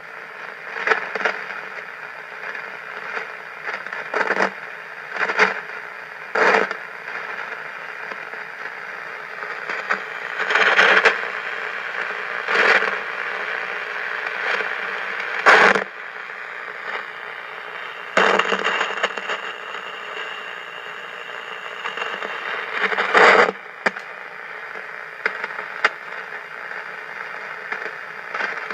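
Lightning static crashes on a Realistic DX-150A shortwave receiver: a steady radio hiss broken by about a dozen sudden loud crackling crashes at irregular intervals, a few lasting about a second. They are the signature of distant thunderstorm lightning, crashing through the atmosphere.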